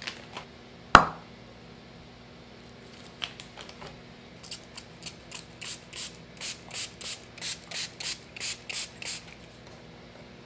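A sharp knock with a brief ring, then a quick run of about a dozen short hissing bursts, roughly three a second.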